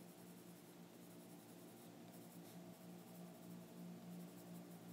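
Faint scratching of a Polychromos colored pencil shading on a coloring-book page, over a steady low hum.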